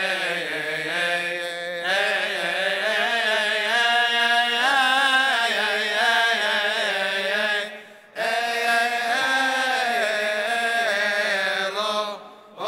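Coptic Orthodox liturgical chant: a male voice sings a long, ornamented melismatic line on drawn-out vowels, its pitch wavering and gliding. There are short breath pauses about eight seconds in and again near the end.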